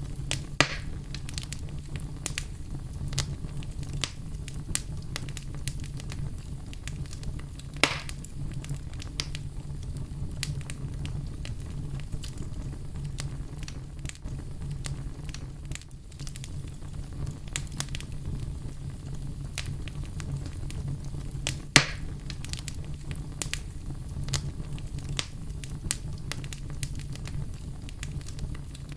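Wood fire burning in a fireplace: a steady low rumble of flames with scattered sharp crackles and pops, the loudest pops about half a second, eight seconds and twenty-two seconds in.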